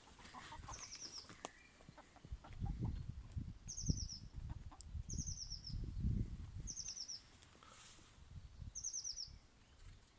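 A small bird's short, high chirping phrase, a quick run of falling notes, repeated about five times. Under it are low rustling thumps, loudest about three and six seconds in.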